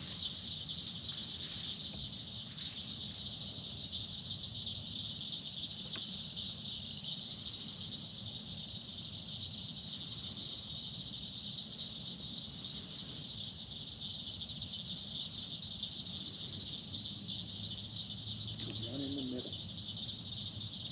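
Night insect chorus: a continuous, steady high-pitched trill of crickets and other insects, with a low steady rumble underneath.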